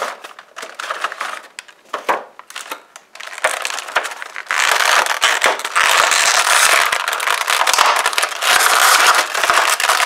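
Clear plastic blister tray of a McFarlane Toys Spawn action figure package crackling and crinkling as it is bent and pried apart by hand. Scattered crackles at first, then loud continuous crinkling from about halfway.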